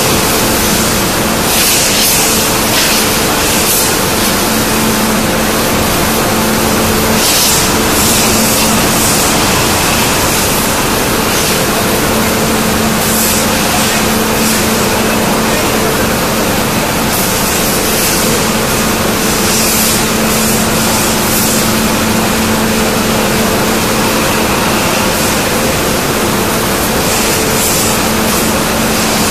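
Steady loud hum of a hydraulic die forging hammer's power unit, one low tone with its overtone over heavy machine noise, with hissing surges that come and go every few seconds.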